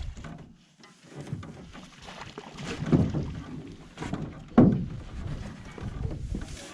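Small fishing boat drifting on a lake: water slapping against the hull, with irregular knocks in the boat, the sharpest about four and a half seconds in.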